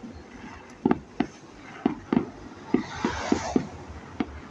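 Fireworks going off at a distance: a string of irregular sharp bangs, about nine, with a brief hissing crackle about three seconds in.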